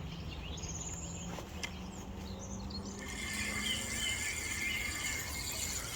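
Faint outdoor ambience: a steady low rumble, with birds calling faintly from about three seconds in.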